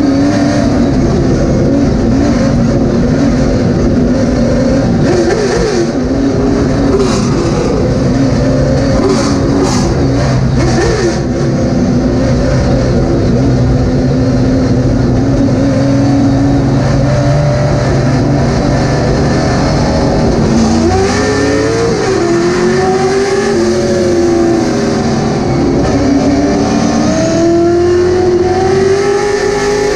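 A late model stock car's V8 engine heard from inside the cockpit at racing speed. It holds a steady pitch for about twenty seconds, then its pitch falls and climbs again several times as the throttle comes off and back on.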